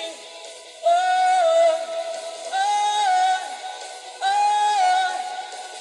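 A female singer with band accompaniment, played from a live concert recording, singing three long held notes in the song's refrain. Each note slides downward at its end.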